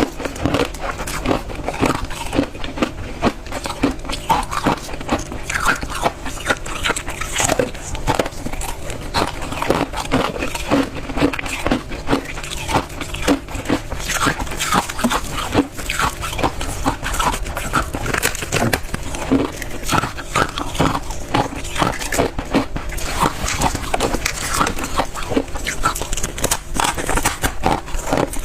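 Close-miked biting and chewing of a refrozen ball of freezer-frost ice, a continuous run of crisp crunches several times a second.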